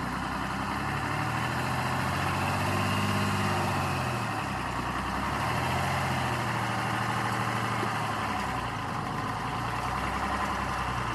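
A vehicle engine running, its pitch rising and then falling twice as it revs up and settles back.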